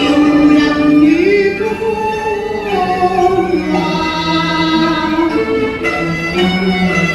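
Cantonese opera music: long, gliding sung notes over bowed-string accompaniment.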